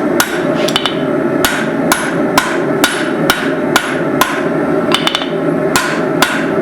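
Hand hammer blows on hot steel at the anvil, about two a second in a steady rhythm with a few quick double strikes, as a drifted hammer head's cheeks are forged out side to side. A steady rushing noise runs underneath.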